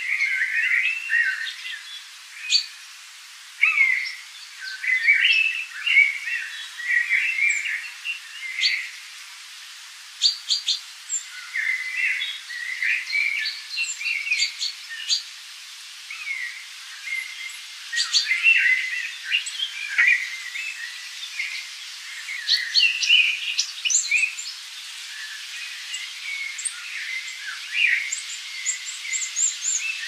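Forest birdsong: several birds chirping and singing in short overlapping calls and trills over a faint steady hiss.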